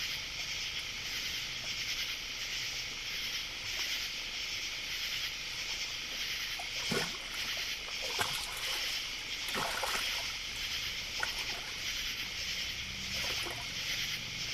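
Steady, evenly pulsing chorus of insects, with a few brief faint calls or knocks in the middle.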